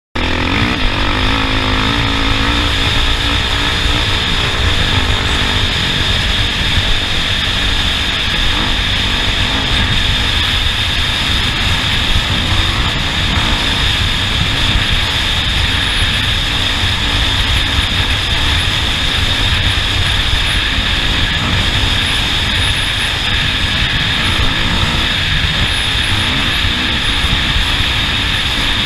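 Off-road race vehicle driving the track: a loud, steady mix of engine and rumble noise that starts abruptly, with a short rising engine note in the first couple of seconds.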